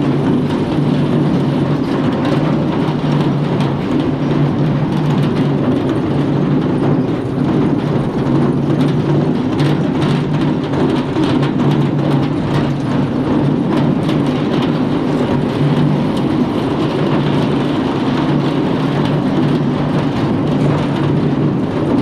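Ear corn elevator running: a steady drive hum with the chain and flights clattering along the metal trough and ears of corn knocking as they are carried up.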